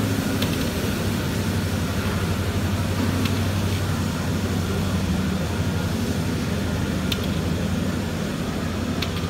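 Natural-gas-powered Olympia ice resurfacer running steadily at low speed while flooding the ice: a constant engine hum with a hiss over it.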